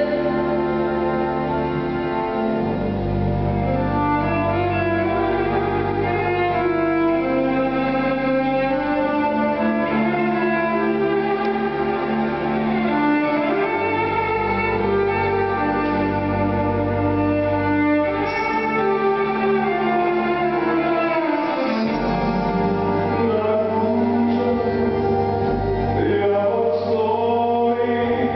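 Live band music led by bowed strings over a steady bass line, with some singing.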